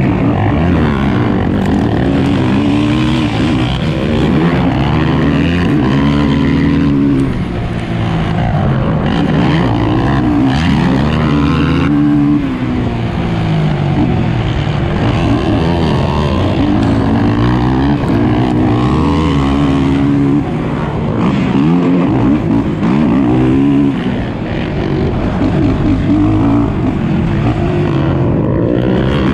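Onboard sound of a 450-class racing quad's engine at race pace, revving up and falling back again and again as the throttle is opened and closed, with a few brief drops where the throttle is shut off.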